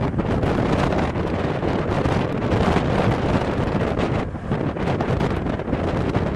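Wind buffeting the camera microphone: a loud, continuous rumbling noise with irregular gusts.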